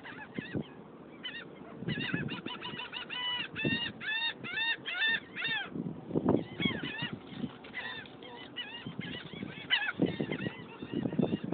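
A flock of terns calling over the boat, a quick series of harsh, arched cries about three a second, with overlapping calls from several birds. A few low thuds come in around the middle and near the end.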